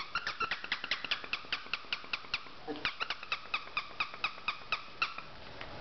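Squeaky plush toy squeaking over and over as a puppy chews it, a fast, even run of same-pitched squeaks, about five a second, with a short break about two and a half seconds in.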